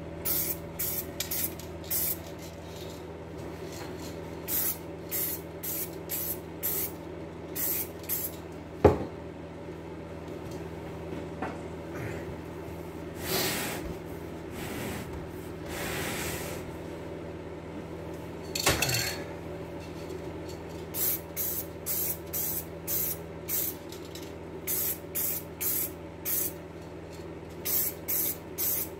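Aerosol spray paint can spraying a car's alloy wheel rim in short bursts, a few a second, with a couple of longer hisses about midway. A steady hum runs underneath, and there are two sharp knocks, about nine and nineteen seconds in.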